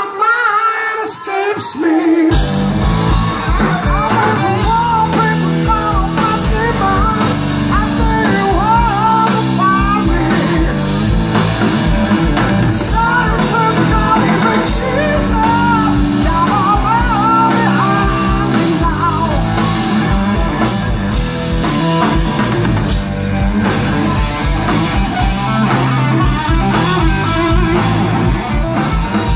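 Live rock band playing loudly, with electric guitar, bass guitar, drums and a man singing. The bass and drums come in about two seconds in, after a thinner opening.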